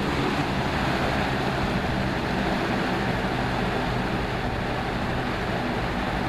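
1999 Lasko 3733 box fan running on its low speed setting: a steady rush of air from the blades over a low motor hum.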